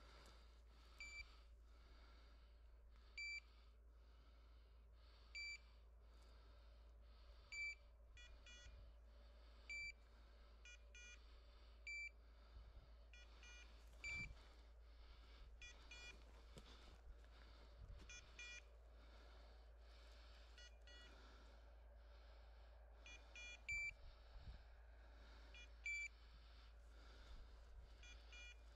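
Hunting dog's electronic beeper tracking collar beeping about every two seconds, some beeps louder and some fainter, over a quiet background.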